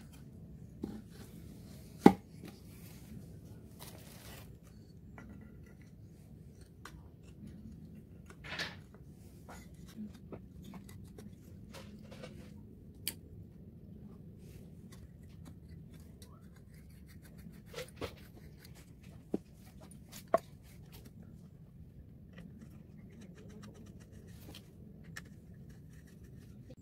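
Scattered clicks and knocks of chainsaw engine and housing parts being handled and fitted together by hand, the loudest a sharp knock about two seconds in, over a faint low hum.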